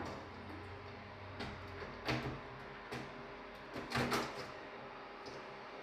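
A few separate knocks and clicks of an oven and its door being handled, over a low hum that fades out about two seconds in.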